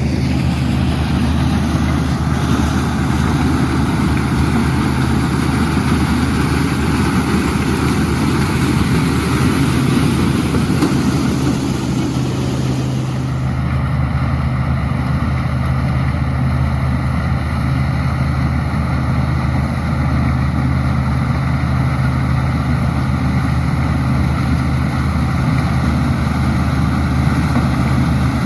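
Combine harvester running steadily while harvesting corn: a constant low engine drone with a rushing noise above it. About halfway through, the higher rushing noise drops away and the drone carries on.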